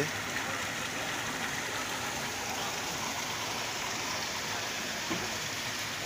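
Floodwater running into an open concrete street-drainage manhole, a steady rush of water.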